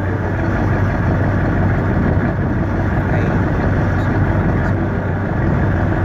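Boat engine running steadily, a constant low hum with no change in speed.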